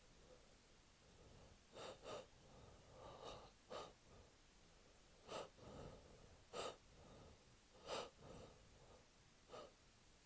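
A man with a head cold taking a string of short, sharp, quiet gasping breaths, the catching breaths of a sneeze build-up.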